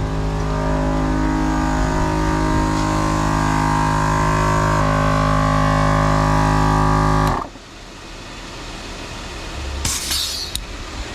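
12-volt portable air compressor running steadily while it inflates a freshly plugged tire, then shut off abruptly about seven seconds in. A brief hiss follows near the end.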